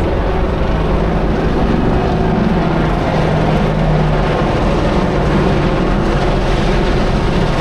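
AH-64 Apache attack helicopter flying overhead: a steady drone of rotor and turbine noise.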